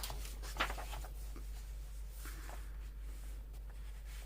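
Paper being handled and slid about on a craft table, with a few light rustles and taps, over a low steady hum.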